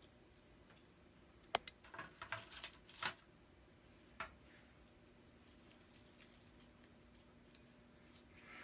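Light taps and rustles of a dough ball being set down on a parchment-lined metal baking tray by gloved hands: a cluster of small clicks about one and a half to three seconds in and one more tap about four seconds in. Between them the room is nearly quiet, with a faint steady hum.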